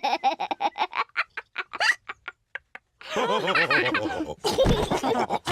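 Cartoon gulping sounds of a character downing juice fast, a rapid run of swallows that slows and stops about two seconds in. About three seconds in comes a loud, choppy cartoon pig vocalisation.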